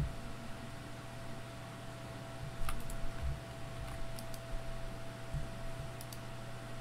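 Steady low hum with a faint steady whine above it, and a handful of light clicks in small groups, between about two and a half and six seconds in.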